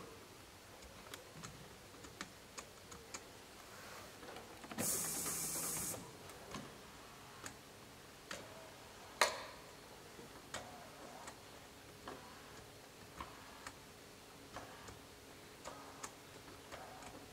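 Scattered light clicks and taps of a hand tool and trim parts as a Mercedes W124 door mirror is worked on from inside the door, with a hiss lasting about a second a few seconds in and one sharper click near the middle.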